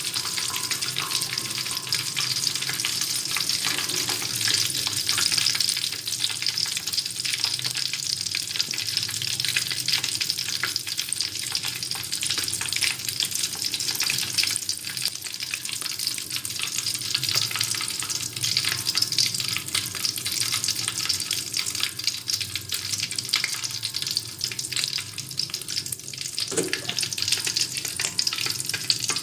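Tofu frying in hot oil: a steady, dense sizzle and crackle of spitting oil.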